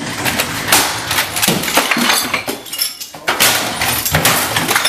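Rapid, repeated crashing and banging of things being smashed, with glass and bottles clinking among the hits.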